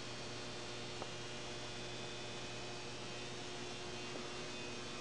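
Steady low electrical hum with hiss, and one faint click about a second in.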